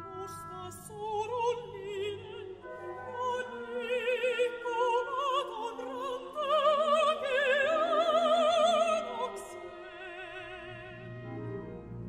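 A mezzo-soprano sings in Finnish with wide vibrato over a symphony orchestra. Her line climbs and is loudest from about six to nine seconds in, then fades near the end as the low orchestral sound carries on.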